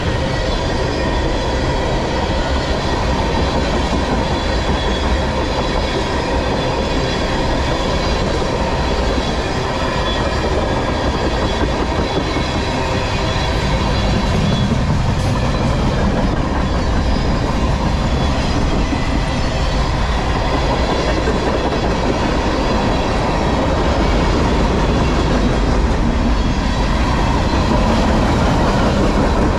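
Mostly empty freight cars of a long manifest train, tank cars and boxcars, rolling past close by: a steady, loud rumble and rattle of steel wheels on the rails, with faint ringing tones above it.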